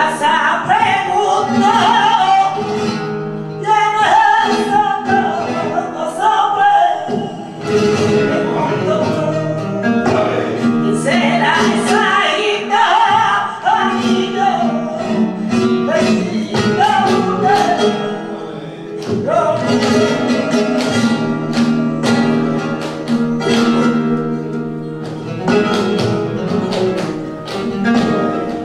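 Live flamenco: a woman's voice sings a bulería por soleá over flamenco guitar, with rhythmic hand-clapping (palmas).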